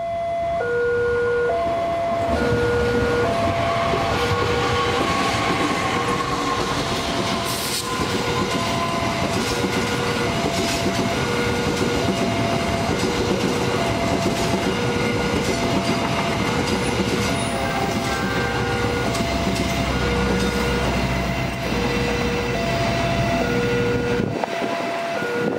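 Level crossing alarm ringing a repeating two-tone signal, low and high notes alternating about once a second, while a passenger train of stainless-steel coaches runs past over the rails.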